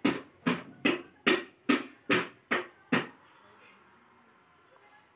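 A quick, even series of sharp knocks, about two and a half a second, that stops about three seconds in, leaving faint low noise.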